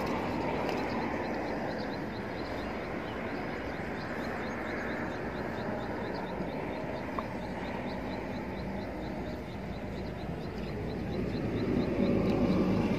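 Steady outdoor background rumble of distant engines, with a faint, high, regular chirping about three times a second, swelling a little near the end.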